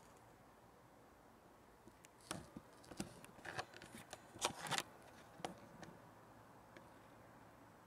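Handling noise close to the microphone: an irregular run of clicks and rustles a couple of seconds in, lasting about three seconds, over faint hiss.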